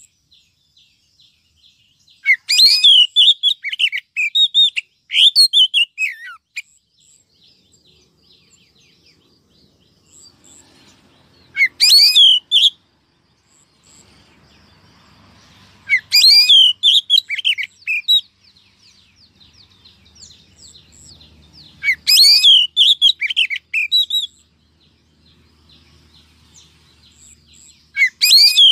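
Oriental magpie-robin song, said to be a female's: loud bursts of rapid, varied whistles and chirps, each one to four seconds long, repeating about every five or six seconds with short quiet gaps between them.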